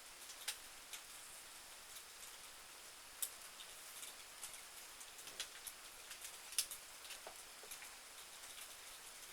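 Light rain falling: a steady soft hiss with scattered sharp drips ticking irregularly, a few of them louder.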